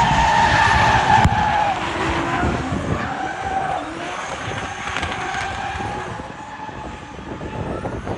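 Drift cars sliding past at speed, engines revving and tyres skidding, loud at first, then fading as they move away.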